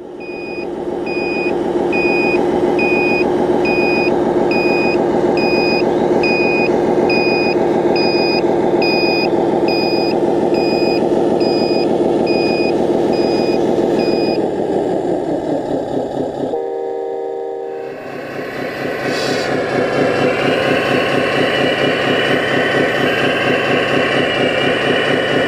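Diesel engine sound from an RC scale dump truck's sound module, running steadily with a reversing beeper going about once a second. The beeping stops about 14 seconds in, and the engine note drops, dips and picks up again with a higher whine from about 19 seconds on.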